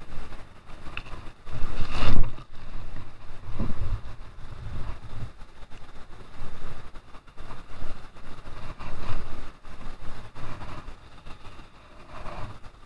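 Irregular low rumbling buffets on the camera microphone, loudest about two seconds in, with the river's rapids faintly behind.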